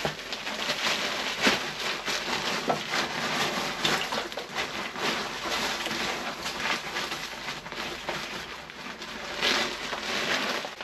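Granulated sugar pouring steadily out of a paper sack into a large plastic tank of warm water, a continuous hiss with crackles from the paper sack as it is tipped.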